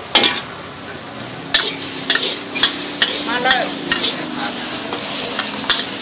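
Stir-frying in a wok: metal spatulas scraping through the food and clanking against the pan several times, over a steady sizzle of frying.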